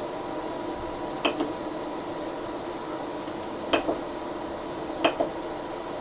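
Short sharp clicks in close pairs, three times, over a steady hum: the Geeetech A20 3D printer's control knob being pressed to step through its menu, with the printer's fans running while it is heated.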